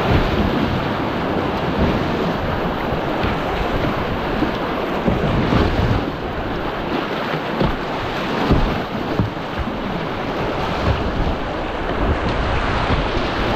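Whitewater rapids rushing and churning around a kayak as it runs a class II-III creek rapid, with occasional splashes of paddle strokes. Wind and water buffet the microphone.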